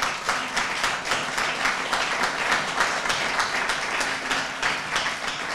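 Audience applauding steadily, a dense, even clatter of many hands clapping.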